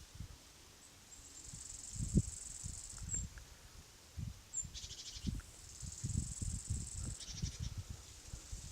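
Field insects chirping in a steady high band that fades in and out, with two short buzzy trills about five and seven and a half seconds in. Irregular low rumbles and thumps run underneath, the loudest about two seconds in.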